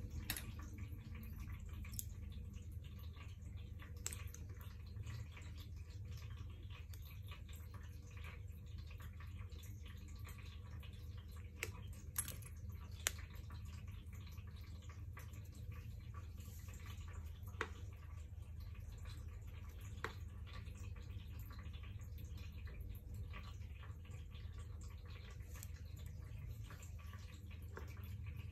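Faint, scattered clicks and ticks of thin wires and leads being handled against the tops of a pack of lithium cells, over a steady low hum.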